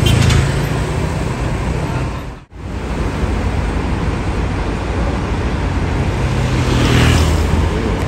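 Diesel coach engine running at idle amid bus-terminal traffic noise. The sound drops out for a moment about two and a half seconds in, and a hiss swells briefly near the end.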